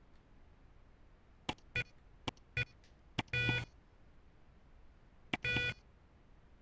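An LED panel clock's built-in alarm buzzer beeping in response to its buttons being pressed while the alarm hour is set, with small button clicks mixed in. First comes a quick run of short clicks and beeps, then two longer beeps about two seconds apart.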